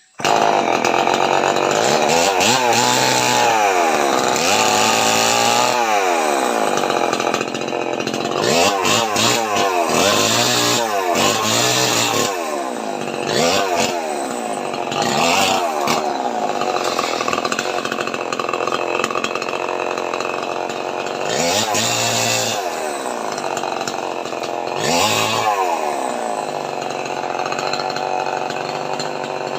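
Two-stroke chainsaw running at high speed as it cuts jackfruit wood, starting suddenly and repeatedly revving up and dropping back.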